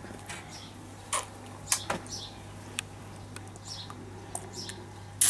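A baby eating puree off a metal teaspoon: a few short, sharp lip smacks and spoon clicks, with faint short high chirps between them.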